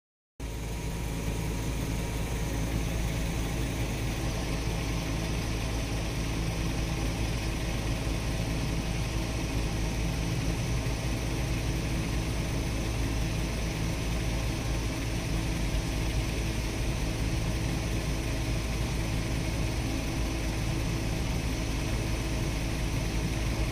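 A steady low mechanical drone with a hum and no breaks or changes, like a nearby engine or machine running at idle.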